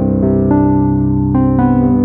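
Background keyboard music: sustained notes over a low bass, with the notes changing every half second or so.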